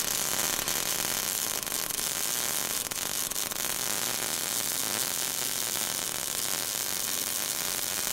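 Steady crackling hiss of a welding-arc sound effect under an animated logo showing a welding torch throwing a spark.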